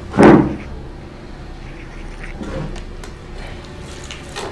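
A voice calls out once at the start, then faint scattered clicks and rustles of a whole grilled chicken being torn apart by hand on a steel plate.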